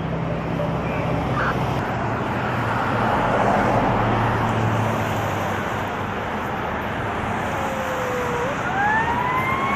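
Traffic noise with a vehicle engine running, then near the end a fire truck siren starts winding up, its pitch rising steadily.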